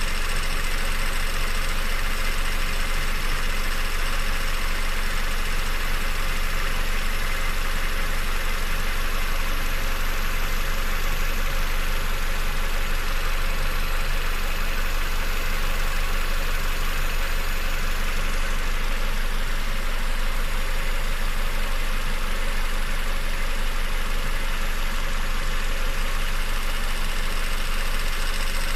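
Peugeot 407's EW10A 2.0-litre four-cylinder petrol engine idling steadily, with the noise that its owner calls strange.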